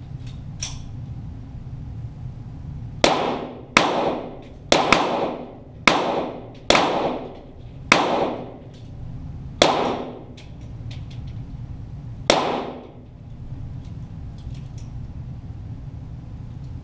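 Eight shots from a .22 rimfire Walther GSP target pistol, heard from beside the target down-range. Each is a sharp crack followed by an echoing tail. The first six come about a second apart and the last two are more spaced out.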